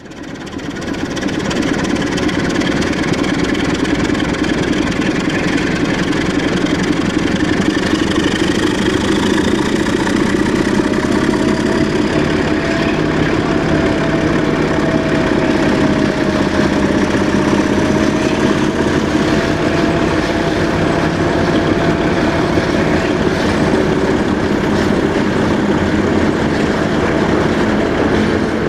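Sulzer 12LDA28 twelve-cylinder diesel engine of a 060-DA (LDE2100) diesel-electric locomotive running hard under power, heard from beside the engine hood at the cab window. It fades in at the start, then holds a steady, dense note, with a faint wavering whine over it in the middle.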